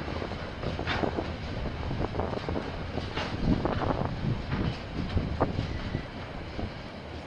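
KiwiRail train passing, its wagons rolling by with a steady rumble and irregular clanks and knocks from the wheels on the track.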